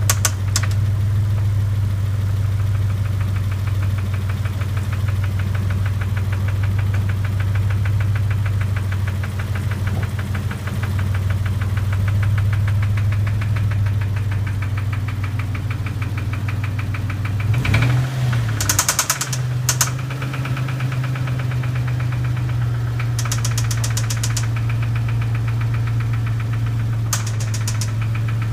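Dodge Stealth's 3.0-litre V6 idling with a fast, steady ticking and knocking, which the owner puts down to engine knock and a bent valve. About two-thirds of the way through, the engine speed dips and picks up again. Short runs of sharp clicks come then and twice more near the end.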